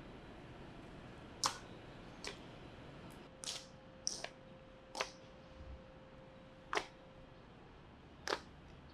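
A hanging strand curtain with metal-capped ends clicking and tapping as it is pushed through: about seven sharp, irregularly spaced clicks over a faint hiss, with a faint steady tone in the middle.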